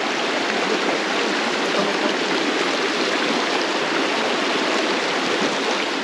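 Shallow rocky stream rushing over stones close to the microphone: a loud, steady rush of water.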